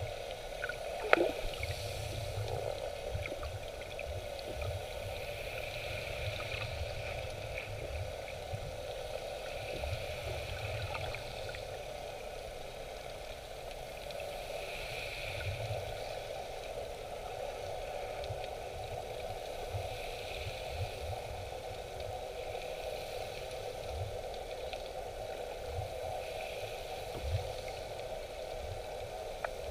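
Underwater sea ambience heard through a camera just below the surface: a steady muffled water hum with irregular low bumps and gurgles, and one sharp click about a second in.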